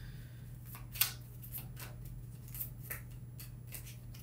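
Tarot cards shuffled by hand: a string of light card snaps and flicks, the sharpest about a second in, over a steady low hum.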